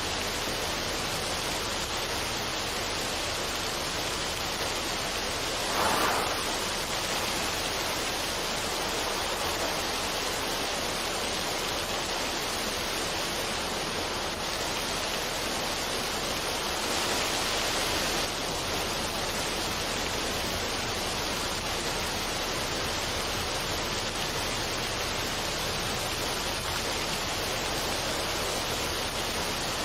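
Waterfall on a mountain stream, water rushing steadily over rocks, with a brief louder splash about six seconds in and a slightly brighter surge of water around seventeen seconds in.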